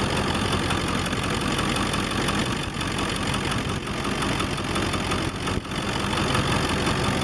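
Early-1999 Ford F-350's 7.3 L Power Stroke V8 turbo diesel running steadily with its clatter, through a turbo-back 4-inch straight-piped exhaust. It is running rough enough to shake the whole truck, though it sounds fairly normal; a shop's cylinder balance test found cylinders 5 and 8 still misfiring.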